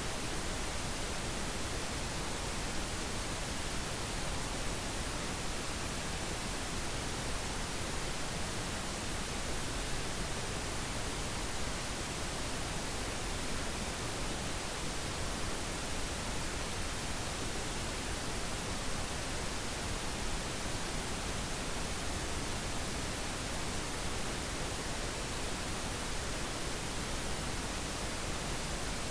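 Steady synthetic pink noise: an even, unchanging hiss spread across all pitches, with no other sound.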